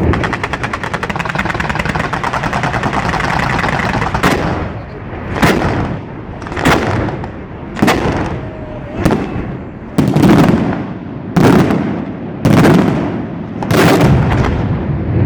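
Fireworks going off: for about the first four seconds a dense, rapid string of reports, then about nine single loud bangs roughly a second apart, each trailing off.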